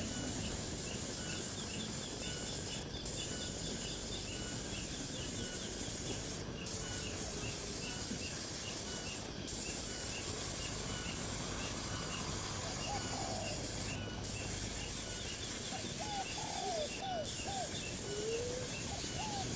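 Birds calling over a steady background hiss: rows of short, high chirps repeat throughout, and runs of lower, curving notes come about 13 seconds in and again near the end.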